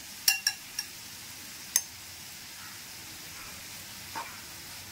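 Marinated chicken pieces sizzling in butter in a frying pan, a steady faint hiss. Several sharp clicks in the first two seconds, and a softer one about four seconds in, as a utensil taps the pan while the last pieces are laid in.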